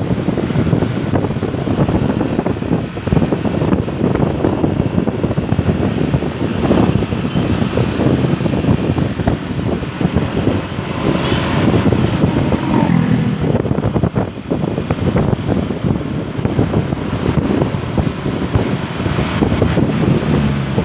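Wind buffeting the microphone over the steady running noise of vehicles on the road.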